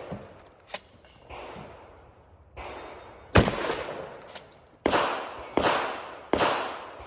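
Four loud gunshots, each with a long echoing tail. The first comes about three and a half seconds in, and the last three follow about 0.7 s apart.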